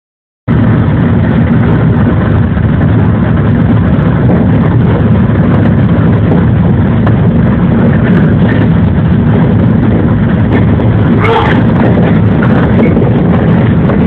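Running noise of a JR 113 series electric train, heard from inside behind the front window: a loud, steady rumble of motors and wheels on the rails. It starts abruptly about half a second in, with one brief sharper sound about eleven seconds in.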